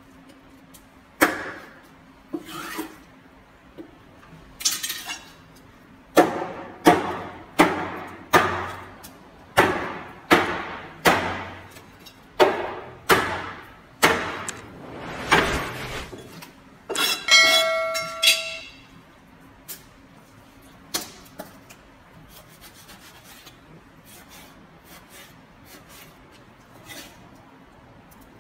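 Heavy knife chopping through fish flesh and backbone onto a plastic cutting board: a run of sharp chops, about one every second at their fastest in the middle, then a few lighter taps. A short ringing tone with several pitches sounds briefly about two-thirds of the way in.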